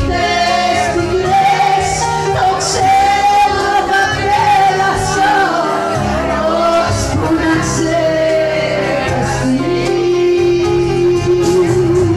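A woman singing a Greek song live with a band, with vibrato on her held notes over steady accompaniment.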